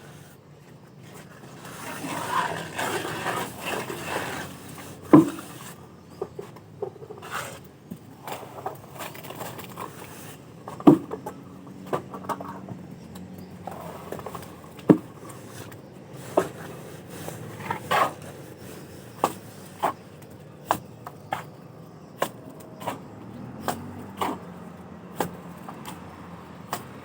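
Hand plastering with a trowel: mortar scraped and spread, with sharp knocks, a few at first, then about one a second through the second half.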